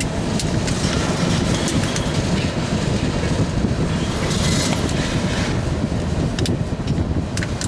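Norfolk Southern mixed freight train's cars rolling past: a steady rumble with scattered sharp clicks and clanks from the wheels over the rails.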